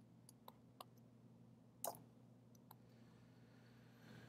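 A few light, sharp clicks in near silence, with one louder knock about two seconds in: taps of a drawing-tablet stylus and keyboard key presses, over a faint steady low hum.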